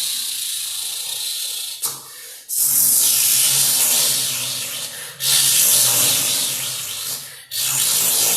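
Long hissing noises, imitating the fizz of a saattai firework: about four hisses of two seconds or so, each broken off by a short pause.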